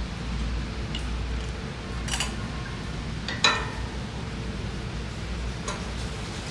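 A few sharp metallic clinks of a steel wrench against the bolts and housing of a mini tiller's water pump as it is bolted on, the loudest about three and a half seconds in with a short ring, over a steady low hum.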